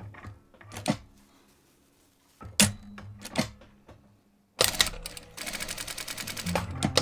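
Industrial sewing machine stitching satin fabric: a few separate clicks and knocks, then from about four and a half seconds in a fast, even run of stitches.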